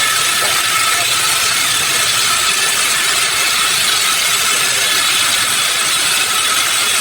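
Sawmill machinery running steadily, a constant loud whirring noise with no breaks.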